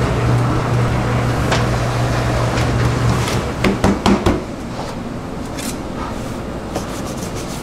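Electric roller dough sheeter running with a steady low hum, which stops a little over three seconds in. Then a quick cluster of knocks and slaps as hands pat the rolled dough sheet down on the floured worktable.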